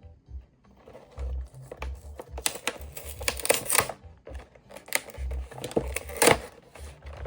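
A cardboard collection box being opened and handled by hand: irregular crackling, tearing and clicking of cardboard and plastic packaging with soft bumps, in two busy spells.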